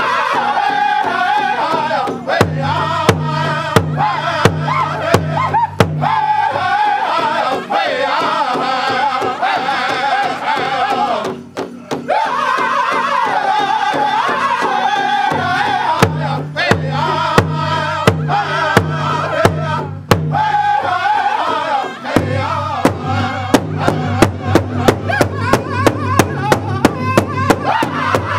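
Powwow drum group singing together over a large hide powwow drum, struck in unison with beaters in a steady beat. The singing breaks briefly about a third of the way in, and in the last few seconds the drumbeats come quicker and stand out more.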